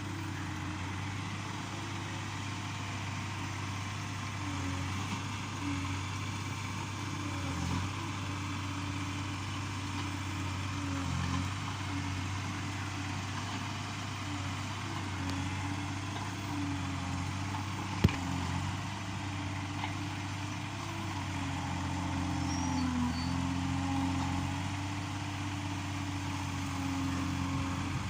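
Yanmar B37 excavator's diesel engine running steadily, its pitch dipping and rising a little as the machine works. One sharp click or knock comes about two-thirds of the way through.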